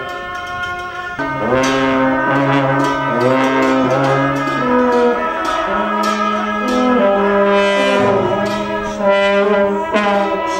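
Music of brass-like wind instruments holding slow notes in several parts, with a new phrase entering about a second in.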